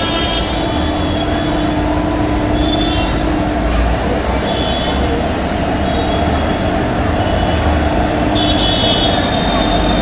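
WDP4D diesel locomotives passing at close range: a steady heavy rumble of engine and wheels on the rails, the engine's low drone fading after the first few seconds as the locomotives go by. Brief high wheel squeals come in three times.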